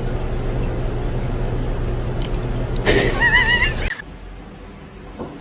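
An animal's call with a quavering, wobbling pitch, about a second long, comes near the end over a steady low hum that then cuts off.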